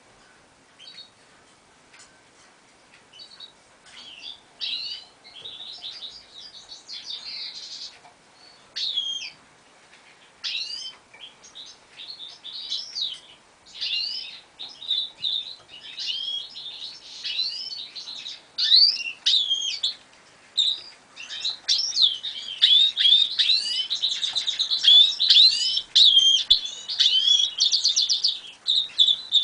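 Goldfinch × canary hybrid singing: short, quick twittering phrases that come more often and grow louder, running together into a long unbroken warbling twitter for the last third.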